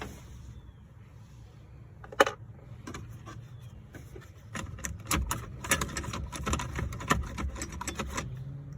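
Hard plastic steering-column trim being handled and worked loose: one sharp click about two seconds in, then a quick run of clicks, knocks and rattles through the second half.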